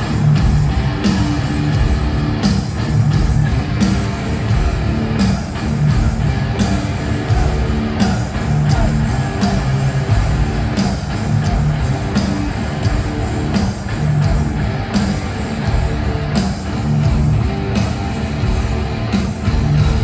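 Heavy metal band playing live through a stadium PA: distorted electric guitars and drums with a steady beat, and singing at times, heard from the stands.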